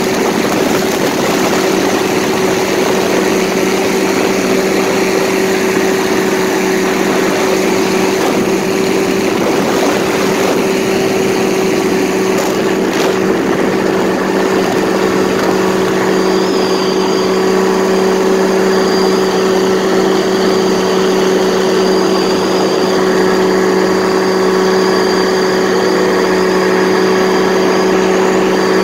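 Paramotor engine and propeller running steadily in flight, holding one constant pitch.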